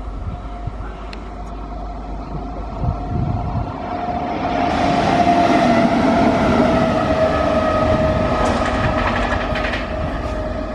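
WAG-9H electric locomotive running light past at close range: wheels clattering over the rails with a steady whine, growing louder for about four seconds and loudest as it passes broadside, then easing off as it runs away.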